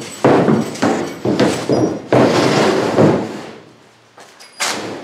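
A sheet of pressure-treated plywood being set down and slid across the gunwales of an aluminum boat: a run of knocks and scrapes of wood on the thin aluminum hull, with a longer scrape about two seconds in and one last knock near the end.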